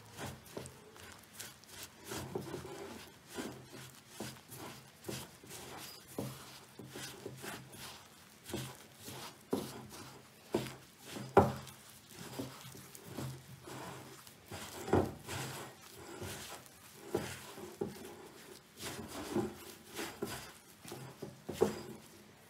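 A hand mixing and kneading flour and egg into noodle dough in a glass bowl: fingers rubbing and scraping the dough against the glass, with irregular small knocks as the bowl shifts. One sharper knock comes about halfway through.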